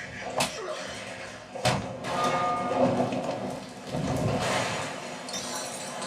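Film fight-scene soundtrack played back through an SVS center-channel speaker: two sharp hits, about half a second in and again just before the two-second mark, then a denser stretch of rumbling, noisy effects.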